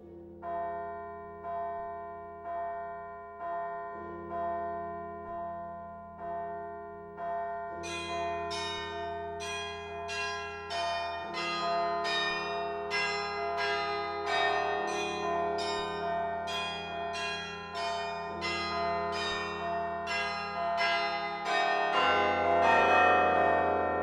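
Carillon bells played from the baton keyboard: a slow, even pulse of about one stroke a second, joined about eight seconds in by higher, brighter bells in a quicker pattern that grows louder toward the end, the low bells ringing on underneath.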